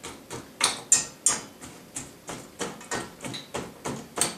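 Frozen raspberries clicking and clattering against a hard container as they are tipped or handled, in a series of sharp irregular clicks, two or three a second.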